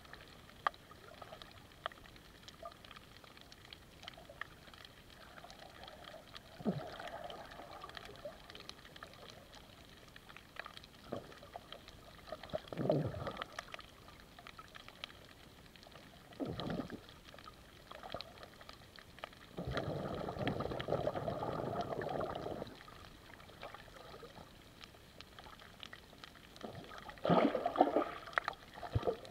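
Underwater sound picked up by a submerged camera moving through shallow sea water: a low, muffled water hiss with scattered faint clicks, swelling into swishes of water moving past it every few seconds. The longest swish comes past the middle and the loudest near the end.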